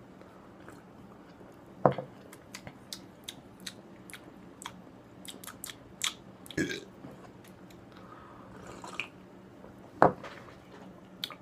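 A person drinking fizzy soda and tasting it: swallows, then scattered small lip smacks and tongue clicks, with a few louder mouth sounds spaced several seconds apart.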